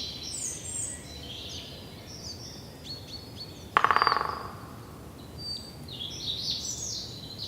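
Forest ambience of songbirds chirping and trilling, with a short, loud, harsh call about four seconds in.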